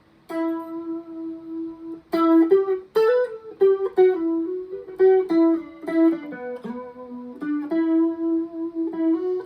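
Electric guitar played through a chorus pedal, a single-note melody of ringing, sustained notes. The first note is held for nearly two seconds, then quicker notes follow.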